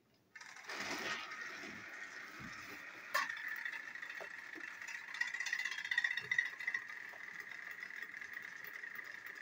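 Battery-powered TrackMaster toy train engines running on plastic track: a steady motor-and-gear whir that starts about half a second in, as the engine is switched on. There is one sharp click about three seconds in.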